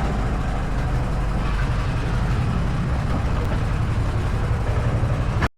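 ATV engine running steadily with a low, pulsing rumble while riding, which cuts off suddenly near the end.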